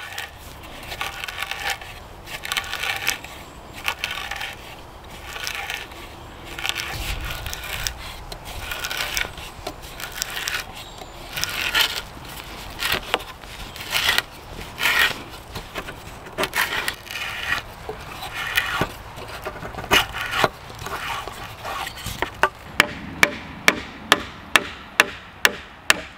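A hand auger boring a hole into a cedar pole, scraping in uneven twisting strokes. Near the end, a hatchet's poll taps a wooden peg into the joint in sharp strikes, about two a second.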